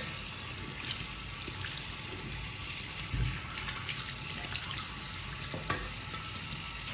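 Water running steadily from a tap into a sink, with a few light knocks and splashes.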